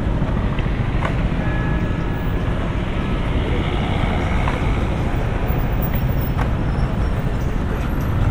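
Steady city street traffic noise with a low rumble, with a few faint clicks, one about a second in and another after about six seconds.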